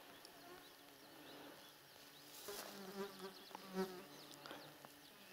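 A flying insect buzzing close by with a steady, faint hum that grows louder twice around the middle, as if it passes near.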